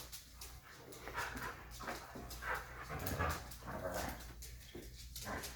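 A dog making several short whimpering and whining sounds.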